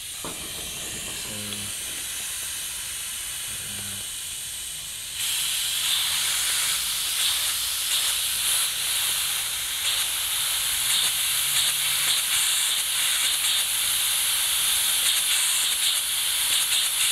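Compressed air hissing steadily out of a LEGO air engine's slide valve and cylinder, growing much louder about five seconds in. The engine fails to run because there is too little pressure in the compressor's tank.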